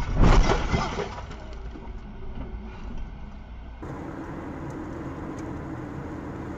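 Car crash heard from inside the car: loud crunching impacts and debris striking the car in the first second, fading into road noise. About four seconds in it switches to the steady hum of a car cruising on a highway.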